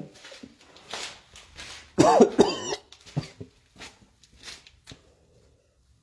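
A person coughing harshly, two quick coughs about two seconds in, among faint clicks and rustles.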